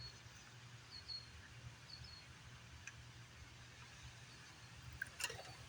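Faint, near-quiet background: a short high chirp repeats roughly once a second over a low steady hum, and a sharp click comes near the end.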